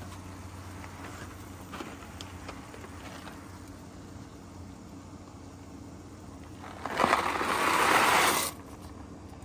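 Dry rotini pasta rattling out of a cardboard box into a pot of boiling water, a loud rush lasting about a second and a half near the end. Before it, a few light clicks over a steady low hum.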